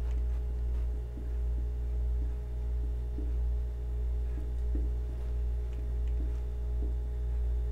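Steady low electrical hum with several constant tones, over faint short squeaks and taps of a marker writing on a whiteboard.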